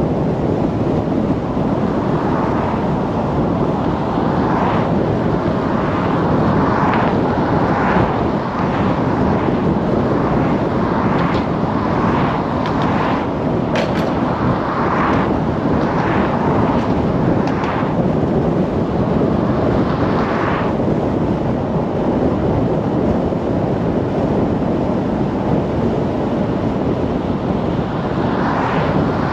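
Car driving on city streets: steady road and wind noise, with a string of short swishes about once a second for a stretch in the middle and again near the end.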